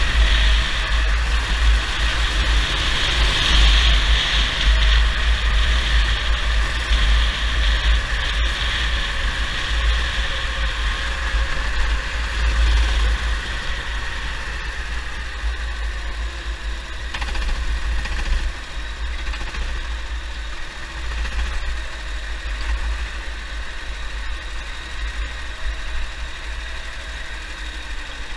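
Go-kart engine heard from onboard, running hard over a heavy low rumble. About halfway through, the engine note drops and the sound gets quieter as the kart slows.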